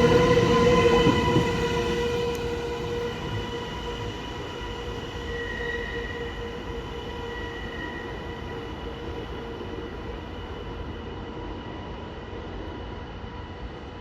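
Amtrak Avelia Liberty high-speed electric trainset pulling away. A steady whine of several tones rides over its running rumble, and both fade over the first few seconds, then level off.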